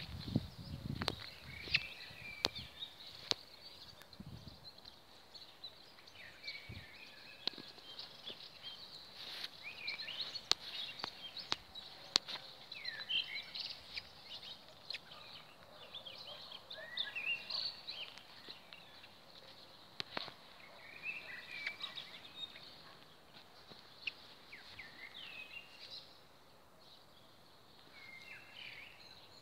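Songbirds chirping and singing, many short rising and falling calls throughout, with a few sharp clicks scattered in between.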